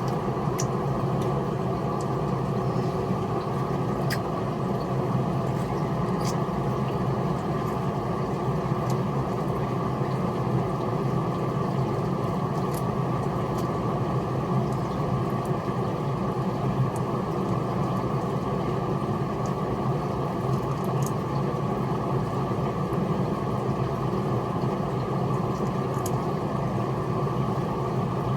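Steady low mechanical hum that does not change, with a few faint small clicks now and then.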